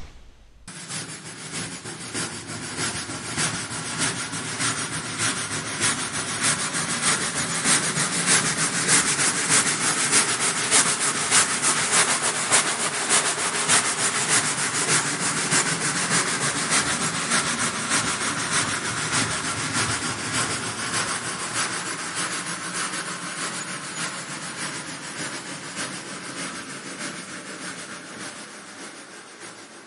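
Steam train sound effect: a fast rhythmic chugging that builds up over the first ten seconds or so, then slowly fades away, like a train passing by.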